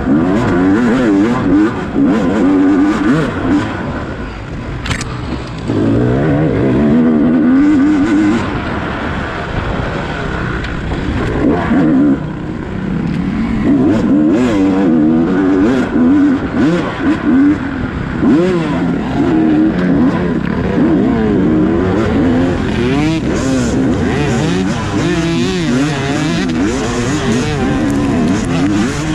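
Dirt bike engine under constant throttle changes, its pitch rising and falling as it revs up and down, with occasional sharp knocks.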